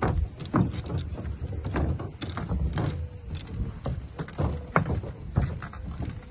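Outdoor ambience with wind rumbling and buffeting on the microphone, broken by irregular knocks and clicks about twice a second.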